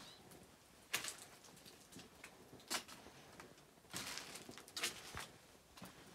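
Faint footsteps on a dirt path strewn with loose stones: a few irregular scuffs and taps, roughly one a second.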